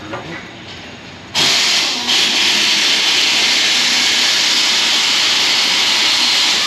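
A loud, steady hiss starts suddenly about a second and a half in and runs on evenly, with a brief dip just after two seconds in.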